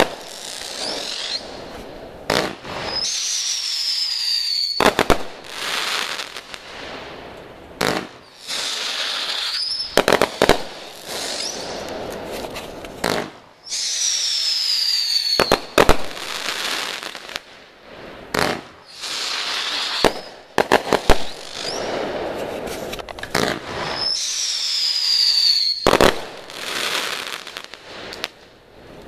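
Consumer fireworks going off in a long rapid series: high whistles that fall in pitch, hissing, and sharp bangs every two to three seconds.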